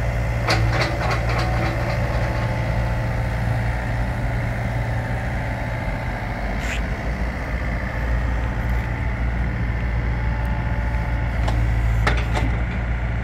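2012 Yanmar VIO57 mini-excavator's diesel engine running steadily while the hydraulic boom is raised. A few sharp knocks come about half a second in and again near the end.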